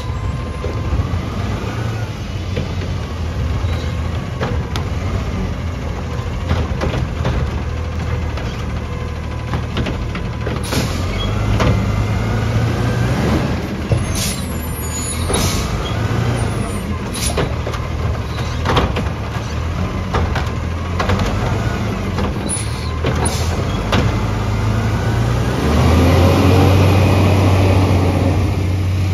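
Front-loading garbage truck's diesel engine running, with a whine that rises and falls, repeated clanks and knocks of the carry can and forks at work, and several short air hisses. Near the end the engine grows louder and rises in pitch as the truck pulls forward past.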